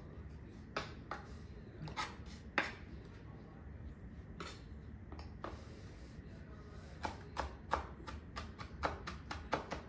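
Knife chopping on a cutting board. Scattered single knocks come first, then a quicker, irregular run of chops over the last few seconds.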